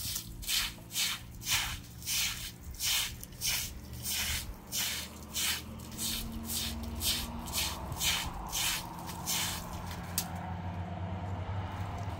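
Rhythmic rough scraping strokes, about two a second, which stop about ten seconds in, leaving a low steady hum.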